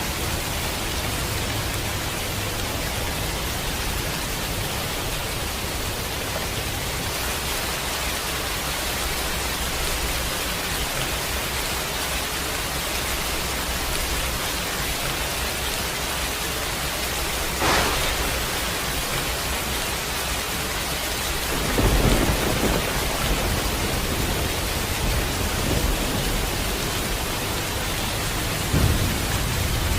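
Steady rain falling with thunder: a sharp crack a little past halfway, a louder rolling rumble about three-quarters in, and a shorter clap near the end.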